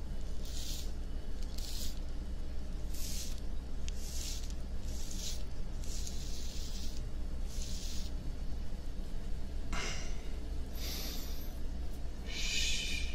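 Razor drawn across beard stubble close to a binaural microphone: about ten short, high, rasping strokes, roughly one a second.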